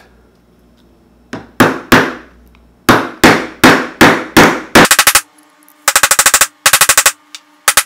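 Mallet blows driving a copper pipe sleeve down onto the end of a hickory blank: sharp, loud knocks, first singly about every third of a second, then in quick runs of rapid blows from about five seconds in.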